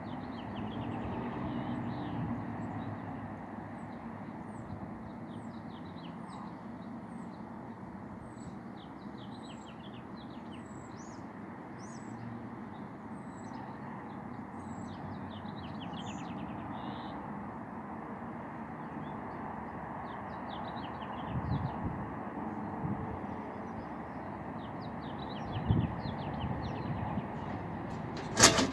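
Birds chirping: short, high, falling calls repeating every second or so over a steady background hum. A sharp knock comes at the very end.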